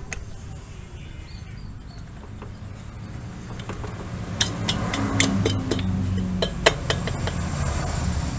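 Sharp metallic clinks, about eight in the space of two or three seconds past the middle, as the finned cylinder block of a Yamaha V75 two-stroke engine is worked down over the studs and new piston onto the crankcase. A low engine-like hum rises under the clinks.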